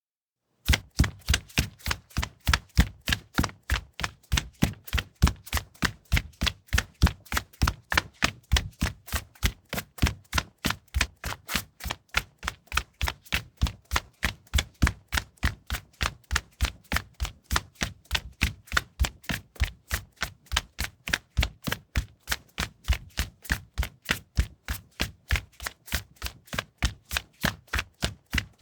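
Running footsteps on a linoleum floor, an even run of sharp footfalls at about three steps a second, starting about a second in after silence.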